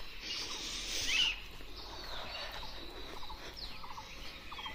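Birds chirping outdoors: scattered short, high calls, the loudest about a second in, over a faint hiss.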